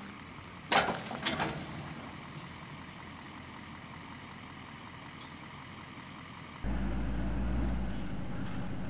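Bale trailer dumping a row of round hay bales: two loud metal clanks close together as the side arms tip and the bales roll off, then a low steady rustle. Near the end the sound cuts to a steady low mechanical rumble.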